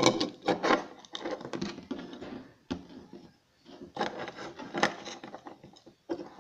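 Small plastic toy pieces being handled and packed into a plastic toy handbag: a run of clicks, taps and rubbing, with a short lull about three seconds in.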